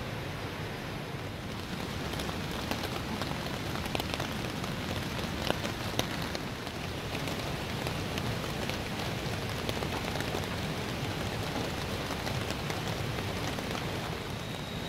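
Steady rain falling, with a few louder drops tapping now and then.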